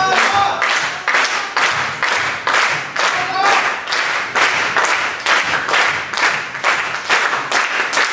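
Crowd clapping in unison in a steady rhythm, about three claps a second, with a couple of brief shouts over it.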